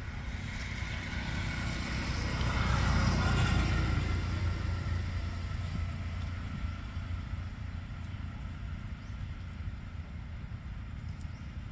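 A motor vehicle passing by on the road, its engine and tyre noise swelling to loudest about three seconds in and then fading away, over a steady low rumble.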